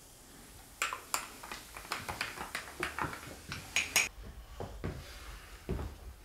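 Kitchen clatter: a quick run of sharp clinks and taps from cups, bottles and cutlery being handled, loudest just before the middle, then a few dull footfalls as he walks over the floor.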